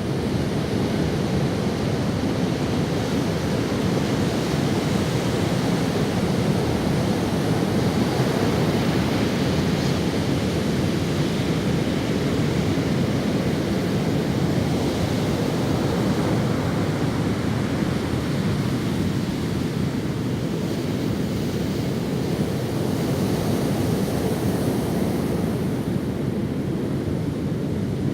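Ocean surf washing onto a sandy beach: a steady, unbroken rush of waves with no distinct single breakers.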